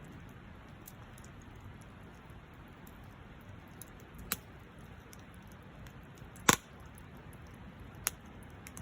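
Wood campfire crackling: a steady low hiss with faint ticks and three sharp pops, the loudest about two-thirds of the way through.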